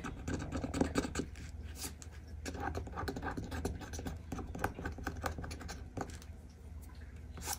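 Scratch-off card being scratched with the tip of a thin pen-like tool: a run of quick, irregular dry scrapes and ticks as the coating on a dot is rubbed off.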